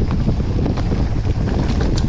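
Wind rushing over the microphone of a moving mountain bike, with a steady low rumble and frequent sharp ticks and rattles from the bike running over a rough dirt trail.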